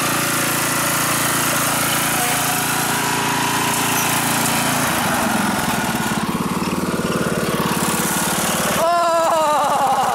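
Riding lawn mower engine running steadily; its sound changes and roughens about five seconds in. A person's voice comes in near the end.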